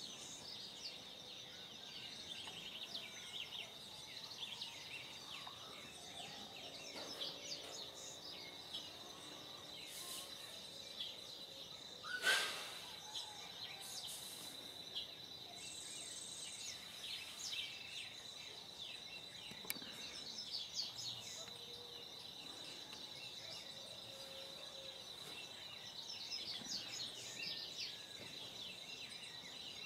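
Dawn birdsong: many small birds chirping and calling in short notes, with a steady high-pitched tone held underneath. One short, sharper sound stands out about twelve seconds in.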